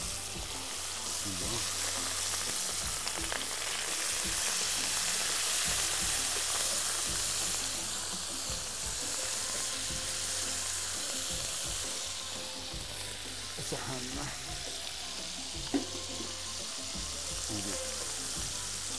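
Safi (rabbitfish) frying in hot oil in a pan, sizzling steadily while a slotted wooden spoon stirs and turns the fish. A single sharp knock sounds near the end.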